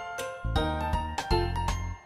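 Background music for children: bright bell-like notes struck in a quick, regular rhythm over a steady bass line.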